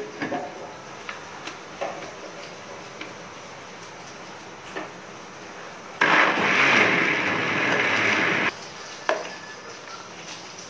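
Miyako electric blender motor running, liquidising raw mango pieces with water; it starts abruptly about six seconds in and cuts off about two and a half seconds later. Before it, a few faint clicks.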